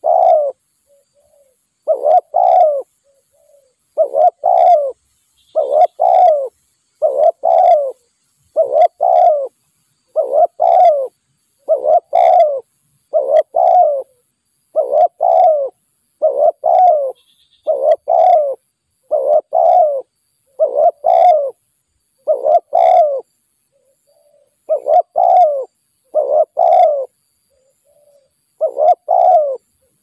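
Spotted dove cooing: loud two-part coo phrases repeated over and over, about one every one and a half to two seconds, with a few faint soft notes in some of the gaps.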